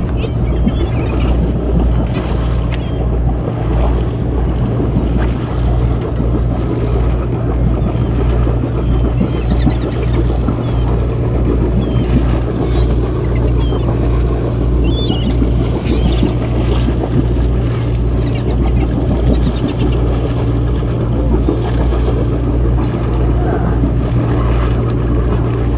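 Sportfishing boat's engine running with a steady, low, pulsing drone, with faint short high chirps now and then above it.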